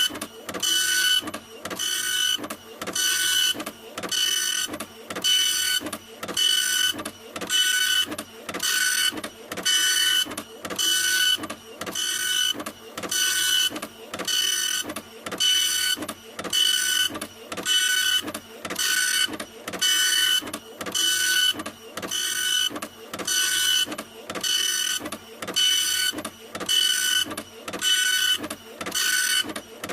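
Printer printing: the print head shuttles back and forth in a steady, even rhythm, about three passes every two seconds, each pass a whirring rush with a thin whine.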